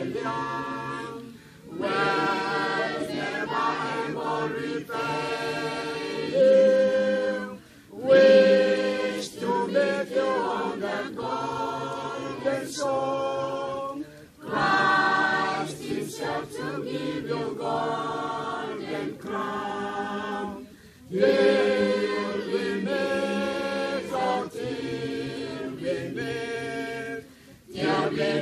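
A cappella choir singing a song in long phrases, each several seconds long, with short breaks between them.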